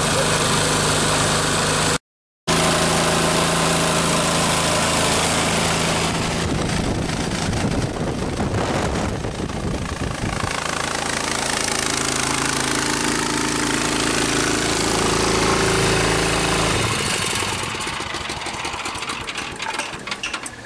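Predator single-cylinder gasoline engine running under load, belt-driving a large squirrel-cage blower fan that rushes air; the engine is too small for the fan and labours. The sound cuts out for half a second about two seconds in, and the engine's steady note fades away about three seconds before the end.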